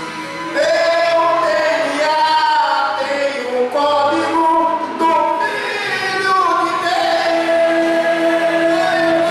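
Man singing a Portuguese gospel hymn through a microphone over a steady accompanying note, holding a long note near the end.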